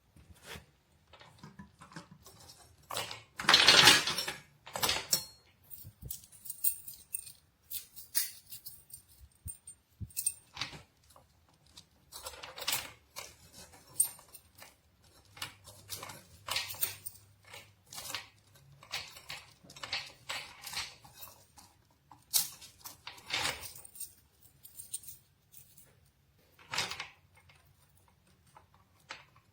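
A steel chain lock and padlock being handled and unpacked: irregular metallic clinks and rattles with brief rustles, the loudest burst about four seconds in.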